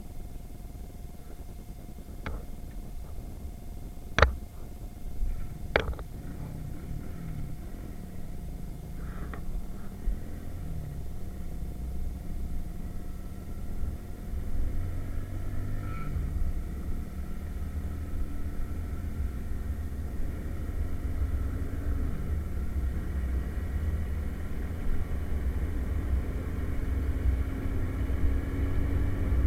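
Irbis Virago 110cc moped's single-cylinder four-stroke engine running under way, its pitch rising slowly as it accelerates, with heavy low wind rumble on the action-camera microphone. Two sharp knocks come about four and six seconds in.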